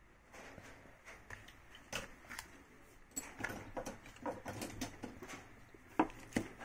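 Hand tools and wires being handled on a workbench: a scatter of light clicks, taps and rustles, with two sharper clicks near the end as a pair of wire cutters is picked up among the leads.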